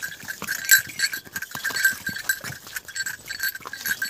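Bells on a riding horse's harness jingling in time with its walking steps, with knocks of its hooves on a stone path.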